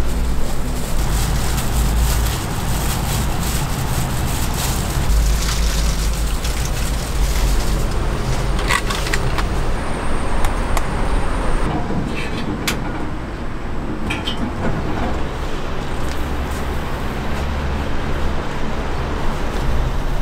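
Steady rumbling background noise with a low hum, broken by a few short sharp clinks about nine, twelve and fourteen seconds in.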